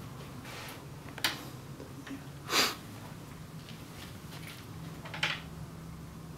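Quiet room tone with a steady low hum, broken by a sharp click about a second in and two short rushing noises, the louder one in the middle and a fainter one near the end.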